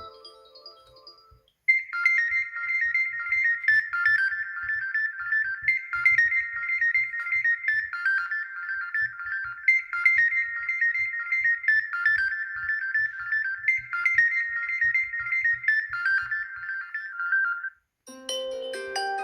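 Xiaomi Mi Mix 3 stock ringtone playing: a bright, high-pitched electronic melody whose short phrase repeats about every four seconds. It stops near the end, and another ringtone with lower notes begins.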